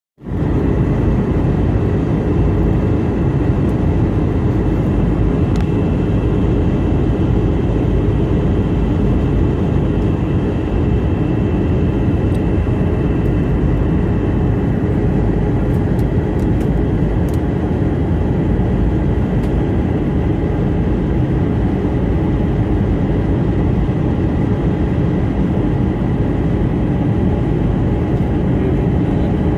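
Airliner cabin noise in flight: steady engine and airflow noise, with faint steady whines mixed in.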